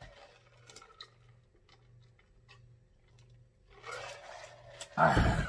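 A man drinking from a bottle close to the microphone: quiet swallowing and small mouth clicks, with a short, louder sound near the end.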